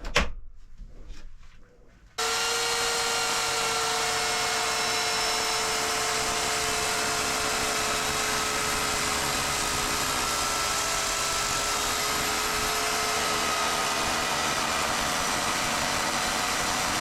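A few knocks, then about two seconds in a chainsaw's engine starts suddenly and runs steadily at an even pitch.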